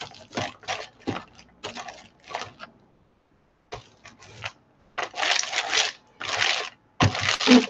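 A hand brayer rolling back and forth over a painted paper journal page. It starts as a quick run of short rolling strokes, and after a pause near the middle come three longer passes.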